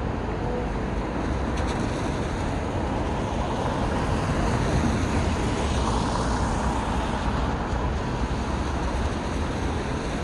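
Steady city road traffic: a continuous wash of passing cars and buses, swelling a little about halfway through.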